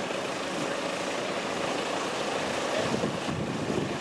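Wind buffeting the microphone over the steady running of a waiting lorry's idling diesel engine. The wind gusts more strongly in the last second or so.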